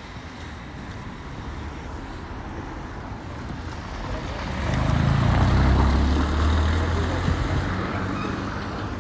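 A motor vehicle passing on a wet cobblestone street: a low engine hum and hiss swell to a peak about five to six seconds in, then fade away.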